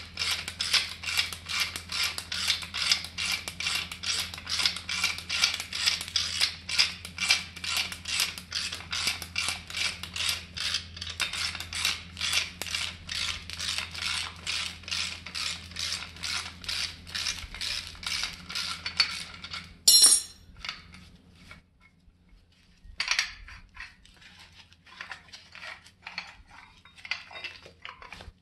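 Ratchet wrench clicking steadily, about three clicks a second, as it turns the screw of a MacPherson strut coil spring compressor to let the tension off a coil spring. About twenty seconds in there is one loud metal clank, then a few scattered clinks and knocks of metal parts.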